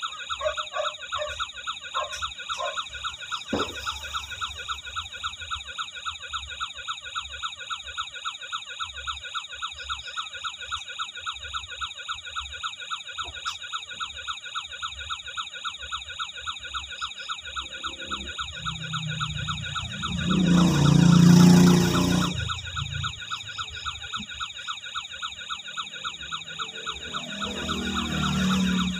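Toy RC truck's built-in electronic siren sound effect, a fast repeating warble of about three pulses a second. A louder low noise swells up and fades about two-thirds of the way through, and again more weakly near the end.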